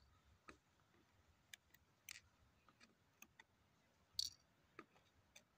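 Faint, scattered light clicks of tweezers and small gold nuggets being set into a small pan on a digital scale. There are about ten in all, the sharpest a little after four seconds in.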